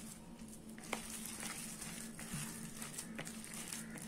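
A hand mixing thick, wet vermicelli-and-maida bonda batter in a plastic bowl: faint, irregular squishing and soft pats, with a light knock about a second in. A steady low hum runs underneath.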